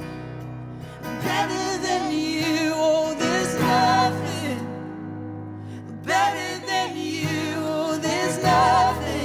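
Worship song: a singer's voice in phrases with short pauses between them, over guitar and steady sustained low notes.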